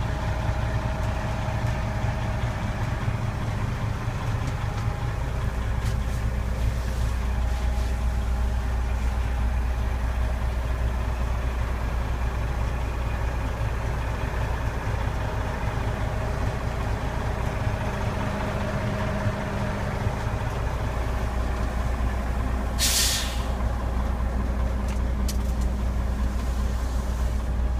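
Detroit Diesel DDEC 370 hp truck engine idling steadily, heard from inside the cab. Near the end comes one short, sharp hiss of compressed air from the truck's air system.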